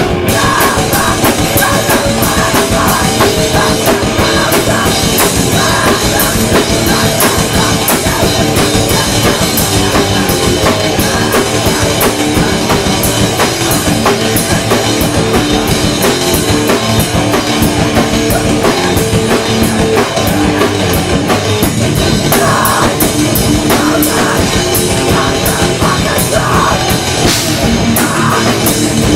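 A hardcore punk band playing live and loud: distorted electric guitars and bass over a drum kit hammering out a dense, steady beat.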